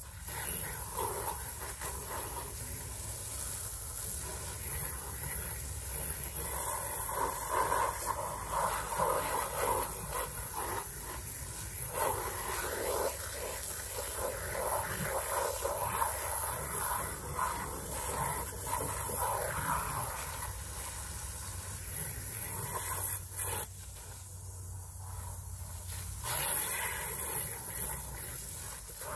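Garden hose spray nozzle hissing, its water spattering onto a clear plastic yurt window panel as it is rinsed clean. The spray comes on suddenly, eases off for a few seconds near the end, then comes back strong.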